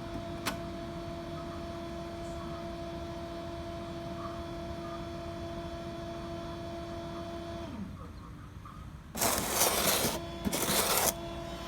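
Laser printer's internal motor running with a steady hum, winding down with a short falling pitch near the end. Then come two loud rushing noises, the first about a second long and the second shorter, before the hum starts again.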